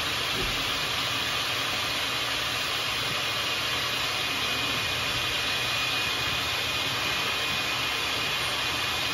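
Air duct cleaning equipment running: a compressed-air whip blowing inside the duct while a vacuum pulls air through a clear collection box over the vent. The sound is a loud, steady hiss and rush with a thin, high whistle held throughout.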